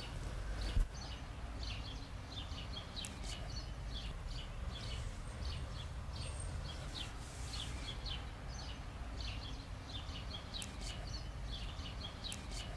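Small birds chirping in quick, repeated short calls over a steady low rumble of outdoor ambience, with a single sharp thump about a second in.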